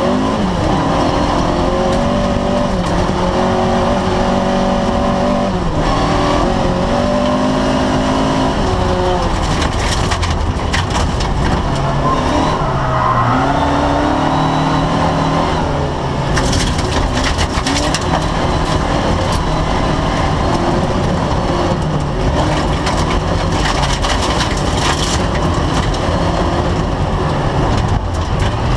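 A competition car's engine heard from inside the stripped cabin, its pitch rising and falling repeatedly as it is revved hard and shifted through the gears. Several times there are stretches of crackling rattle as gravel and stones strike the underside of the car.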